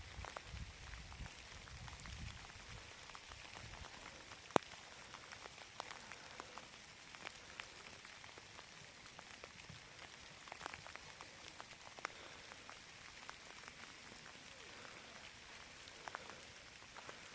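Light rain falling, faint and steady, with many small scattered drop ticks and one sharper click about four and a half seconds in.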